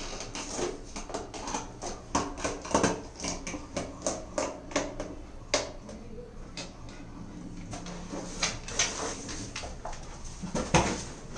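Beagle biting and nosing an inflated rubber balloon: a busy run of short rubbing and tapping sounds of teeth and muzzle on the rubber, thinning out around the middle, then a single louder knock near the end.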